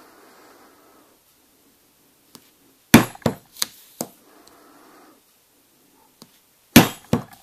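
Heavy plastic-head mallet striking a steel hole punch through a leather collar strap: two sharp blows about four seconds apart, each followed by a few lighter knocks, as the holes are punched out.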